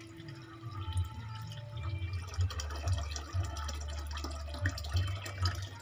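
Water poured by hand in a thin stream into a shallow glass tank, splashing and trickling, over a steady low rumble.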